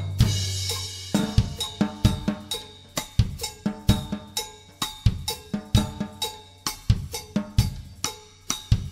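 Acoustic drum kit playing a cha-cha groove at 130 bpm, drums alone with no other instruments. It opens with a cymbal crash over a low drum that rings for about a second, then settles into a steady beat of snare, bass drum and cymbals.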